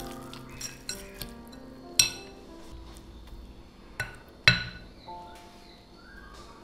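Metal fork stirring and mashing a soft tofu, egg and vegetable mixture in a glass bowl, with a few sharp clinks of metal on glass, the loudest about four and a half seconds in.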